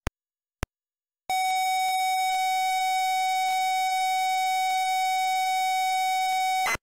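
ZX Spectrum cassette loading: two short blips, then the steady high pilot tone of the tape load from about a second in, cut off suddenly near the end.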